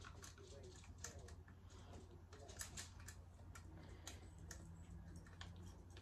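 Faint, irregular clicks and taps of small parts being handled as the cap is fitted back onto a toggle switch, over a low steady hum.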